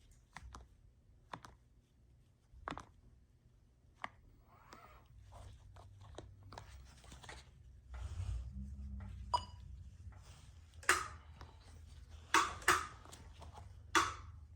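Scattered sharp clicks and taps from handling and pressing the buttons of a wheelchair joystick control module, the loudest near the end, with a low hum that comes up about eight seconds in.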